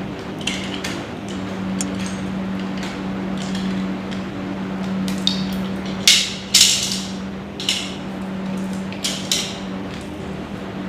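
Hand work on a network cable with small tools: clicks, scrapes and a few sharp scratchy rasps, most of them between about six and nine and a half seconds in, over a steady low hum.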